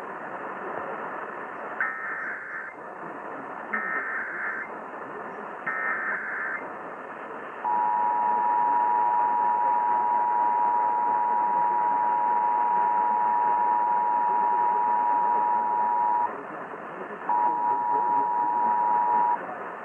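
Emergency Alert System test tones over a hissing broadcast radio signal. First come three short digital header bursts about two seconds apart. Then the steady two-tone attention signal (853 and 960 Hz together) sounds for about eight and a half seconds, breaks off for a second, and sounds again for about two seconds near the end.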